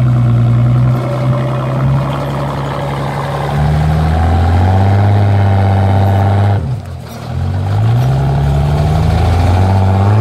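Engines of an IFA truck and a Jeep Wrangler revving hard under load as the truck tows the Jeep out of deep mud. The engine note climbs and wavers, dips sharply about two-thirds of the way through, then builds again.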